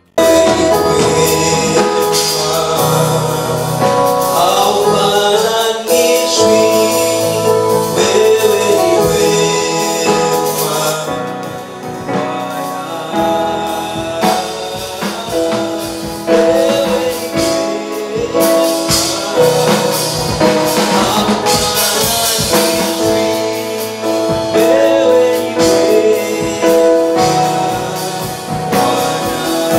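Gospel praise team of men and women singing together into microphones, over sustained instrumental backing. The music cuts in suddenly at the start.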